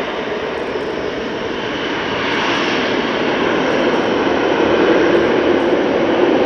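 Tupolev Tu-95MS bomber's four NK-12 turboprop engines with contra-rotating propellers, a steady drone that grows louder from about two seconds in as the aircraft comes closer.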